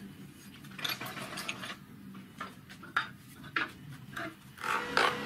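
Steel parts clinking and scraping against each other and the bench vise as they are handled and fitted: a run of light metal knocks and scrapes, the loudest about five seconds in.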